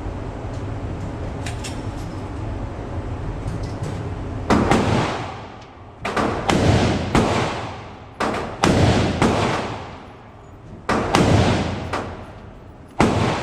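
Firearm shots, about ten of them at an uneven pace, mostly in quick pairs and threes about half a second apart, each with a short echoing tail. A steady rushing noise fills the first four seconds before the first shot.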